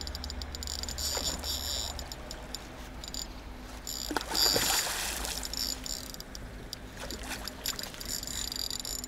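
A hooked carp (sazan) thrashing and swirling at the water's surface on a slingshot-fishing line, with a louder splash about halfway through. A high rattling whir comes and goes over it.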